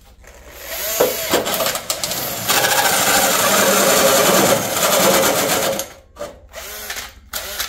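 Cordless Makita drill turning a bimetal hole saw into a zinc rain gutter, the saw teeth scraping and chattering against the thin metal. It cuts steadily for about five seconds, then stops and gives a few short bursts near the end.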